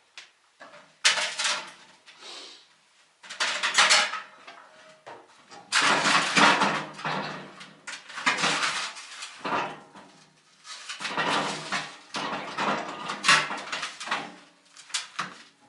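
Metal parts of a fireplace door clattering and scraping as they are handled and pulled off, in several loud irregular bouts.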